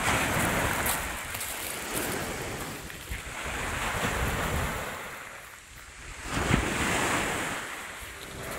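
Small waves breaking and washing up a shingle beach, the surf swelling and easing a few times, with wind buffeting the microphone and a sudden thump about two-thirds of the way through.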